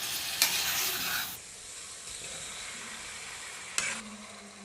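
Chicken pieces frying in a masala-coated pan, a steady sizzling hiss that turns quieter about a second and a half in, with a couple of light knocks.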